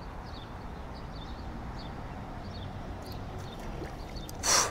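Quiet outdoor background: a steady low rumble with faint, repeated high bird chirps, and a brief loud rush of noise about four and a half seconds in.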